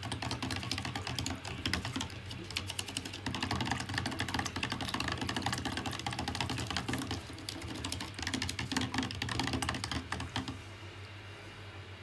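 A metal screwdriver stirring water in a cut plastic bottle, clicking and rattling rapidly against the plastic, stopping about ten and a half seconds in. A steady low hum runs underneath.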